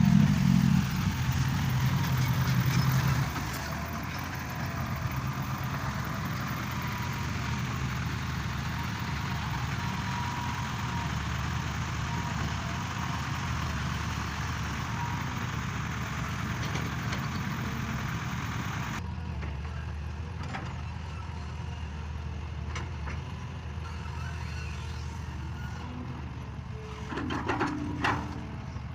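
Excavator engine running steadily, louder for the first few seconds, with the sound changing abruptly about two-thirds of the way through and a brief louder clatter near the end.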